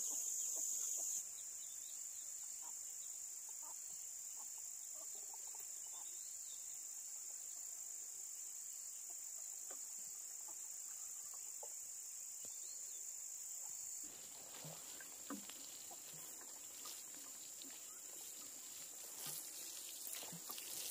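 A steady, high-pitched drone of insects, with faint scattered small knocks and rustles. The drone drops a little in level about a second in and again about two-thirds of the way through.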